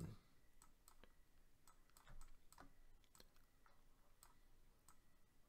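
Faint, irregular clicks, roughly two a second, of a stylus tapping on a drawing tablet as lines are sketched.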